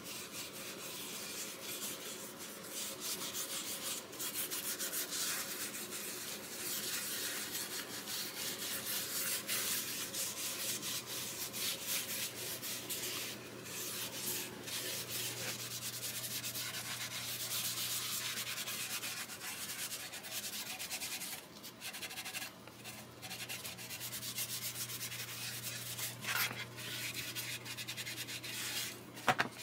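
Cloth rag rubbing dye stain into a bare mahogany guitar body: continuous scratchy wiping made of many quick back-and-forth strokes. A short knock comes near the end.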